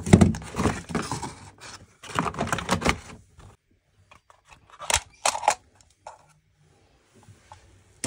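Cardboard box and paper packaging rustling as a new wireless boiler receiver is handled and lifted out, then a few sharp plastic clicks about five seconds in.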